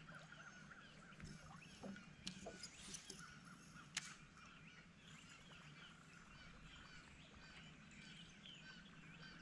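Faint chorus of birds chirping and singing, with one sharp click about four seconds in.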